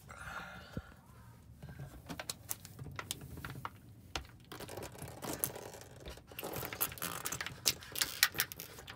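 Thin plastic water bottle crinkling and crackling as it is gripped and tipped up to drink from, with scattered sharp clicks that grow busier in the second half.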